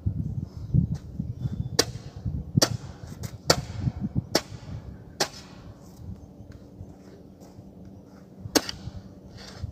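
Long-handled hoe (kodal) blade striking and scraping into loose soil on a concrete road: a series of sharp strikes about a second apart, a pause of a few seconds, then one more strike near the end.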